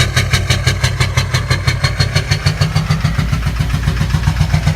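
2006 GMC Duramax 6.6-litre V8 turbodiesel idling with a hard, rhythmic knock, about six knocks a second, that sounds like a helicopter. The knocking is the sign of a failed fuel injector after a tank of bad fuel.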